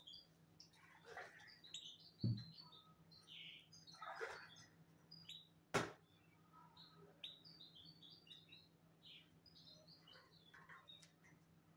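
Small birds chirping in many short, high calls. There is a dull thump about two seconds in and a sharp click near the middle.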